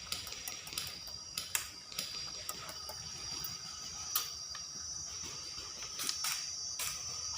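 Airsoft guns firing in scattered sharp pops and clicks at irregular intervals, over a steady high drone of insects.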